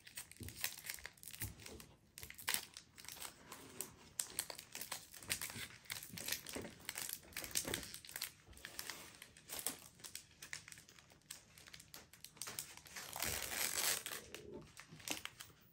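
Foil Pokémon booster pack wrapper crinkling and crackling as it is handled and torn open, loudest for about a second near the end.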